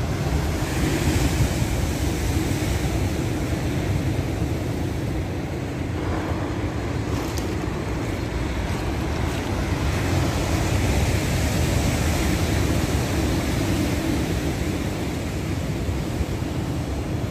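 Heavy storm surf: big waves breaking continuously along the shore and against a sea wall, a steady dense wash of noise that swells and eases, with wind rumbling on the microphone.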